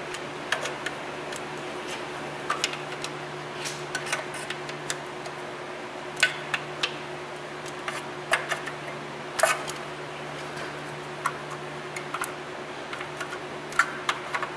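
Irregular sharp metal clicks and taps from a speed wrench and socket turning the transmission pan bolts as they are snugged up, over a steady low hum.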